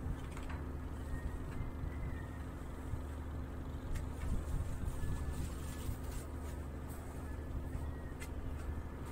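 Steady low hum of a vessel's engine running, with a few light clicks and knocks on deck.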